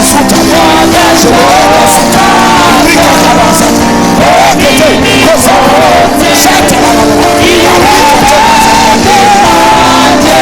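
Live worship music: a voice sings long, wavering notes that glide up and down over held chords, with no break.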